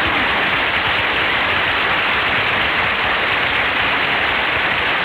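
Studio audience applauding steadily, welcoming the star as he is introduced.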